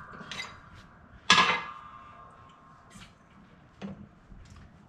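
Metal clanking as a steel bracket plate and dimple die are worked flat: one sharp, ringing clank about a second in, among a few lighter clinks.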